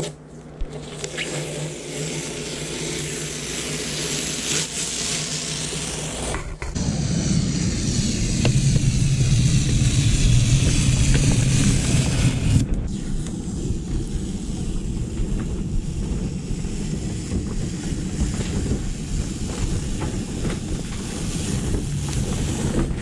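Masking tape being peeled off a freshly painted non-skid deck: a continuous tearing, scraping noise in three stretches with abrupt breaks between them, over a low outdoor rumble that is strongest in the middle stretch.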